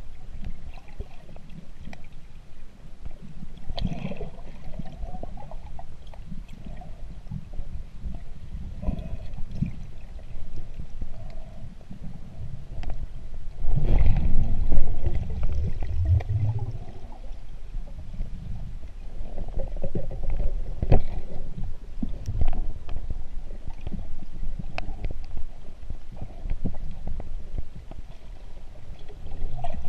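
Muffled underwater sound of moving water against a submerged camera: a continuous low rumble with scattered small clicks and knocks. It grows louder for a few seconds a little before halfway, with a brief low hum.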